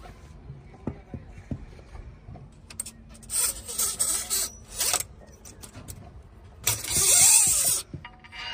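Heavy machinery working: a steady engine hum with scattered knocks, and two loud rushing, hissing stretches, one about three seconds in lasting nearly two seconds and a louder one about seven seconds in.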